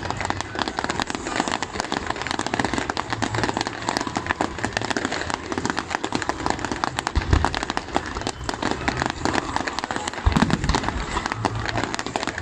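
Fireworks display: a dense, continuous crackling and popping from many fountains and small bursts fired together, with two deeper booms about seven and ten seconds in.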